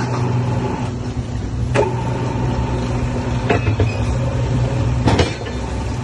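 Rebar threading machine running with a steady motor hum. Three sharp metallic knocks sound about one and a half to two seconds apart.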